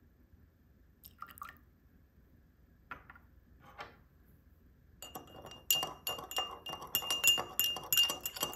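A few light clinks of a utensil against a bowl, then from about five seconds in a fast run of clinks over a steady ring, as a hand whisk beats against the side of a bowl.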